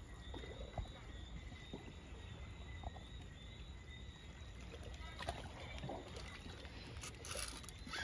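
Faint outdoor background noise: a low, uneven rumble with a few scattered light clicks and a faint steady high tone.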